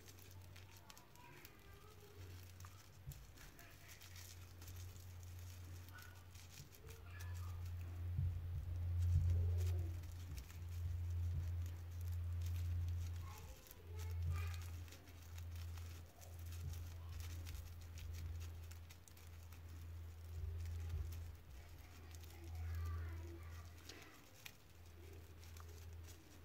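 Tissue paper being scrunched up by hand, giving soft, scattered crinkles and rustles. Under it runs a low rumble that rises and falls in level, loudest from about a third of the way in.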